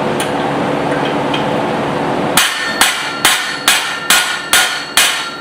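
Steady mechanical noise for about two seconds, then a hand hammer strikes hot steel on the anvil seven times, a little over two blows a second, each with a short metallic ring, while forging a small hammer head.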